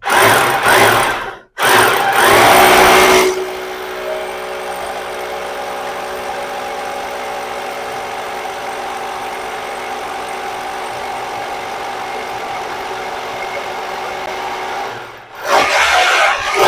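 Corded hammer drill with a 16 mm hammer bit drilling into a tiled wall. Loud for the first three seconds with a brief stop about a second and a half in, then a steadier, quieter run, and loud again near the end.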